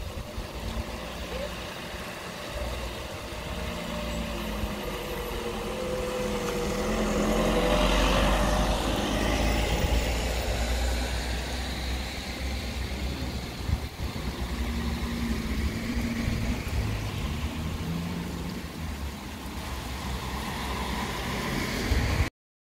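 Traffic on a wet street: a car approaches and passes about eight seconds in, its tyres hissing on the wet asphalt, and another engine is heard later, with wind rumbling on the microphone. The sound cuts off suddenly near the end.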